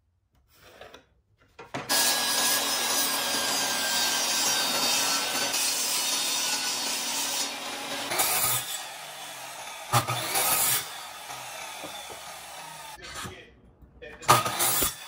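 Power saw cutting pine board. The saw runs steadily through the wood for about six seconds, then runs more quietly with a couple of short louder bursts. Near the end comes a brief loud cut.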